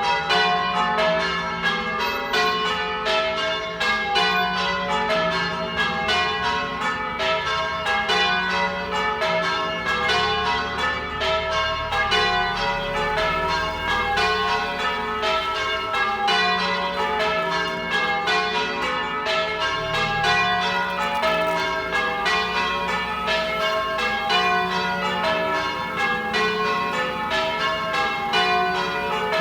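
Church tower bells change ringing: the bells strike one after another in a steady, even stream, each stroke ringing on into the next.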